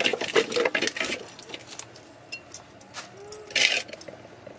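A fish being scraped and cut against a boti, an upright curved blade fixed to the floor, with a quick run of scraping strokes over the first second. Scattered clicks and clinks follow, and there is a short rasp near the end.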